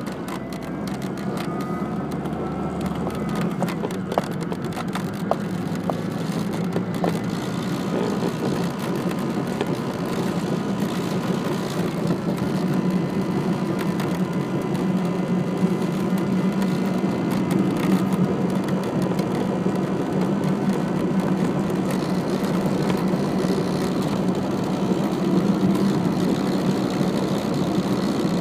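Cabin noise of a 1998 Saturn being driven: a steady low engine and road drone that slowly grows louder, with a few light ticks between about four and eight seconds in.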